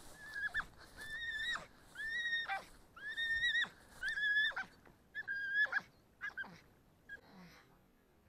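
Jagdterrier hunting dog whining, a run of about six high whines roughly one a second, each ending in a drop in pitch, dying away near the end.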